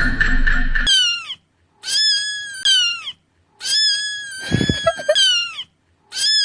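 Cat meowing repeatedly: about five high-pitched meows in quick succession, each held briefly and then dropping in pitch at the end.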